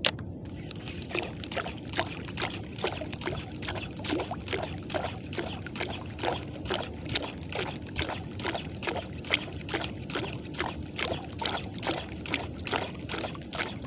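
Water slapping and sloshing against a small boat's hull about twice a second, over a steady low rumble. A single sharp knock right at the start.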